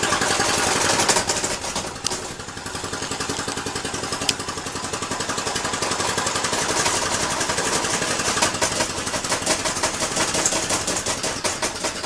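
Small two-stroke weed-eater engine converted to a single-acting steam engine, running on steam from a pressure-canner boiler: a fast, even chuffing of exhaust pulses. Two sharp clicks sound about two and four seconds in.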